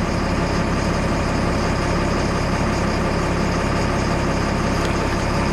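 1996 Stewart & Stevenson M1078 LMTV's six-cylinder diesel engine idling steadily as it warms up.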